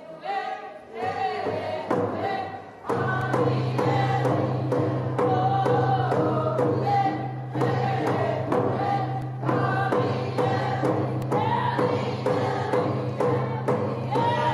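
Athabascan dance song: a group of men and women singing together in unison, joined about three seconds in by a steady drum beat of about two strokes a second.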